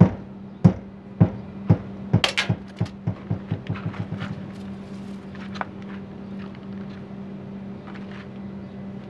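A sledgehammer head, swung on a pendulum from a 300 mm drop, knocks against a caravan's wall panel and bounces off it again and again. The knocks come quicker and weaker until the hammer settles against the panel about four seconds in.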